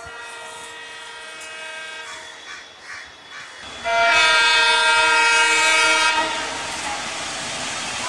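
Indian Railways locomotive horn: a fainter sustained blast that dies away, then about four seconds in a much louder blast of about two seconds. After the loud blast comes the steady running noise of the approaching train.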